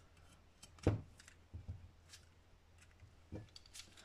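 A few scattered light clicks and knocks, the loudest about a second in, as a utility knife trims gasket material along the edge of an aluminium engine casting.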